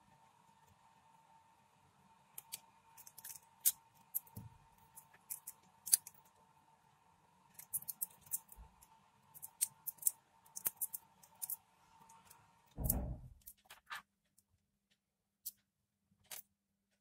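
Thin copper wires being twisted together by hand onto an earphone cable: irregular sharp clicks and crinkles. A faint steady hum runs behind them and stops with a thump about thirteen seconds in.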